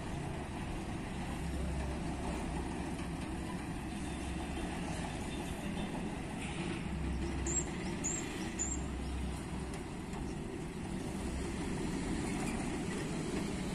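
Mercedes-Benz 917 truck's diesel engine running at low speed as the truck moves slowly over rough ground, a steady low rumble that swells a little now and then. Three short high chirps sound about halfway through.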